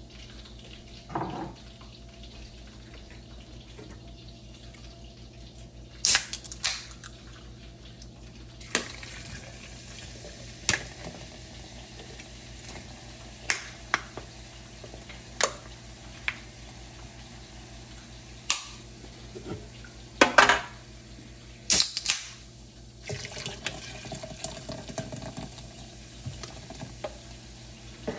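Sprite poured from a can into a glass blender jar over ice, the soda fizzing as the jar fills, with a dozen or so sharp clicks and knocks of can and glass along the way.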